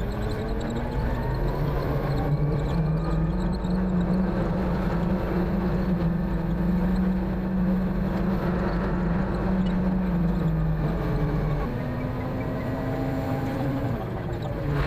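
Concrete mixer truck's diesel engine running under load. Its pitch rises about two seconds in and holds steady, then drops and quietens about three seconds before the end.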